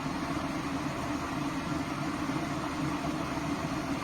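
Electric kettle heating water: a steady rushing hiss as the element warms the water.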